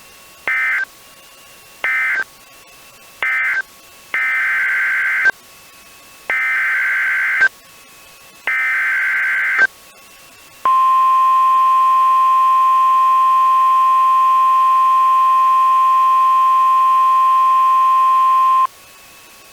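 NOAA Weather Radio EAS alert tones: three short bursts and then three longer bursts of screechy SAME digital data, followed by the steady 1050 Hz warning alarm tone held for about eight seconds, which announces a new warning.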